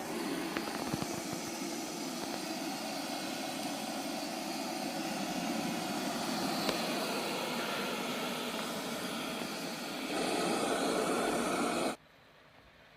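Light 'N' Easy self-emptying robot vacuum running with a steady whir, getting louder about ten seconds in, then cutting off suddenly about a second before the end.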